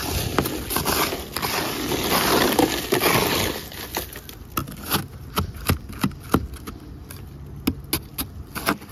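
Metal-bladed ice scraper pushed across a car windshield through a thick layer of packed ice, crunching and scraping steadily for about the first three and a half seconds. After that comes a run of sharp separate cracks and clicks as chunks of ice break loose.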